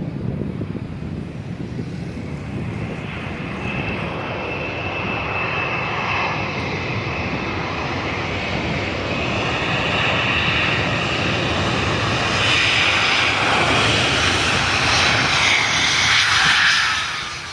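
Airliner's engines running with a high whine over a broad rush, growing steadily louder as the aircraft nears and dropping off sharply right at the end.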